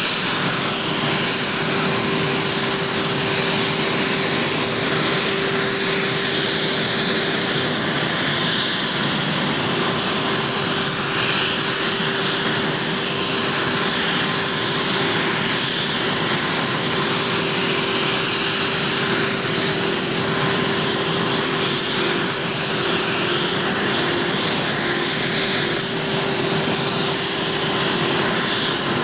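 Air Force One, a Boeing VC-25A (747) with four turbofan engines, taxiing at low thrust. It makes a steady jet rush with a constant high whine over it.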